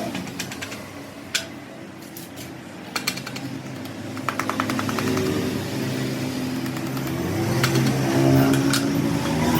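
A motor vehicle engine running, its pitch shifting a little, with a few sharp clicks and a quick run of ticks a little after four seconds in.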